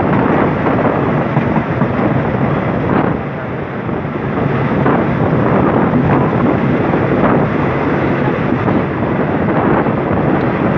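Passenger train running along the track, heard from an open window, with wind buffeting the microphone in a loud, steady rush of noise.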